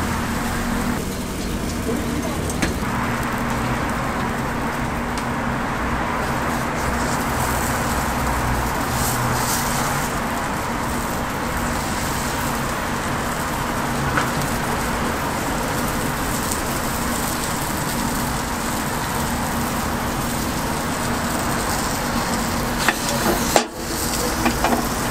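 Steady noise of street traffic, with a few sharp clicks, most of them near the end.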